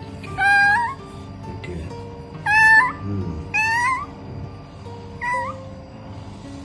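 Injured kitten, hit by a car and unable to move its limbs, meowing in distress: four loud cries a second or so apart, each rising in pitch at the end, the last one shorter.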